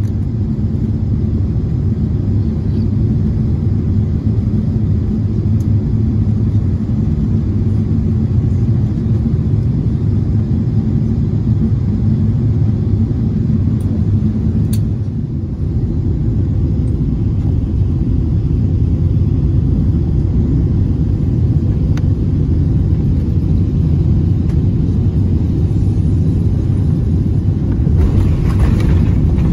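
Steady low rumble of an airliner cabin on final approach, with a louder rushing roar near the end as the aircraft comes down onto the runway.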